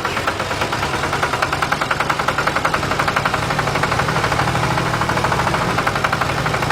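Small tractor engine running steadily with a fast, even chugging beat.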